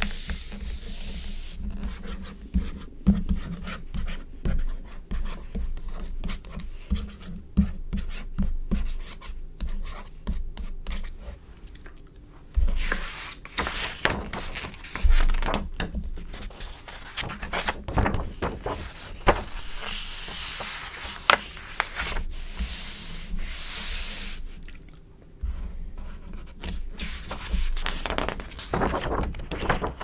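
Hands rubbing and smoothing the glossy pages of a magazine, with a run of small taps and crinkles. In the second half, several pages are flipped over with rustling swishes.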